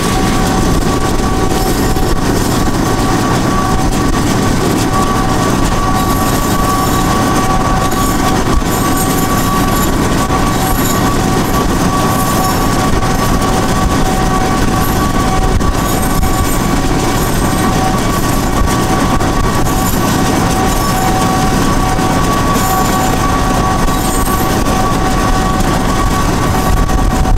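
Canadian Pacific diesel freight locomotive running at speed alongside, its engine drone and rolling wheel noise mixed with the road and wind noise of the vehicle pacing it, steady throughout with a faint constant whine.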